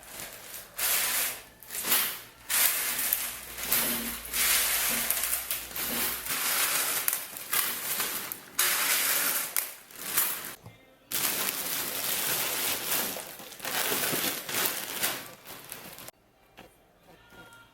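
A packaging bag crinkling and rustling in irregular bursts as it is handled and folded. It goes quiet near the end.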